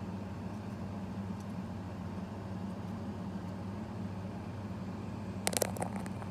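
Steady low background hum from room machinery or electrical equipment, with a quick cluster of sharp clicks about five and a half seconds in.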